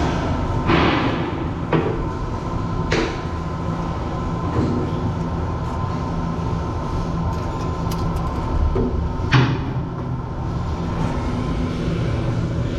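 Loud, steady rumbling machinery noise with a low hum and a faint steady tone, broken by a few sharp knocks, four of them standing out.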